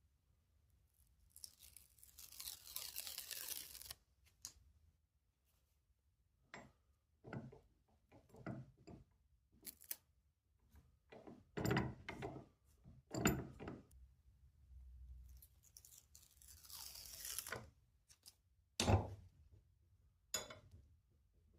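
A long tearing sound lasting about two seconds, repeated once later on, amid scattered sharp knocks and clicks of tools and parts being handled.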